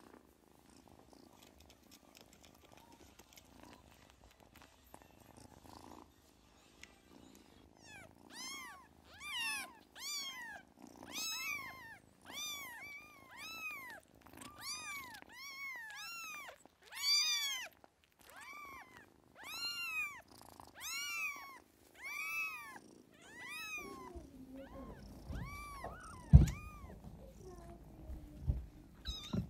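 A kitten mewing over and over, about two dozen short high-pitched mews that rise and fall, starting about a quarter of the way in. Before the mewing there is only faint purring, and near the end a low rumble and a couple of sharp knocks.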